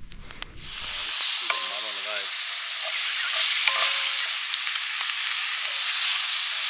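Chopped vegetables sizzling in a hot cast-iron skillet over a campfire, the sizzle starting suddenly about half a second in as liquid is poured into the pan. It then carries on steadily while the pan is stirred with a wooden stick.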